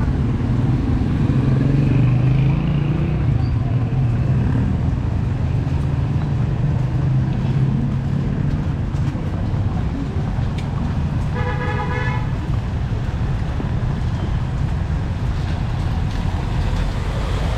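Road traffic: a motor vehicle engine running steadily close by for the first several seconds, then a single vehicle horn honk lasting about a second, about twelve seconds in.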